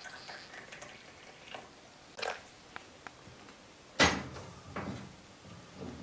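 Tableware knocking and clinking: tea glasses and a teapot handled on a metal serving tray, a few light taps, then one sharp, loud knock with a short ring about four seconds in.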